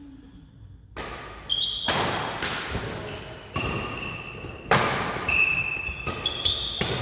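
Badminton rally: rackets hitting the shuttlecock in a string of sharp, echoing smacks starting about a second in, with footfalls and trainers squeaking on the wooden court floor between hits.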